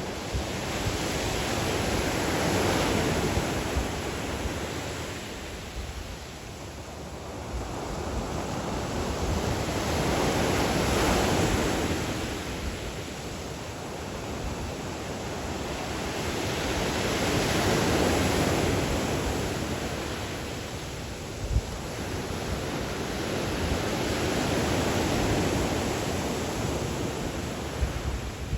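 Black Sea waves washing onto the shore, the surf swelling and fading in four slow surges about seven seconds apart.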